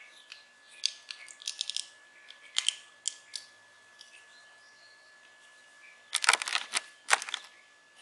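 Small plastic clicks and rattles from a modular wall switch being handled, in several short bursts. The loudest burst comes a little after six seconds.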